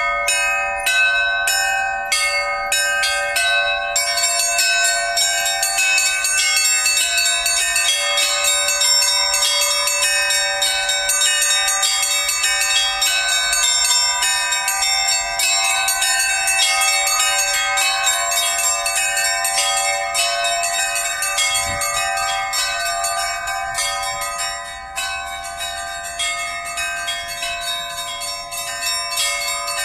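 Orthodox church bell ringing (zvon): several bells of different pitch struck in quick, continuous succession, their tones overlapping into a dense peal. The ringing eases slightly in the last few seconds.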